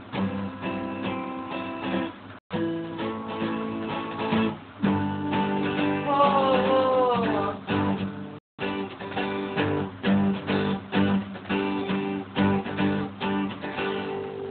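Acoustic guitar strumming chords, with a note that slides downward about six seconds in. The sound cuts out briefly twice, a little after two seconds and about eight seconds in.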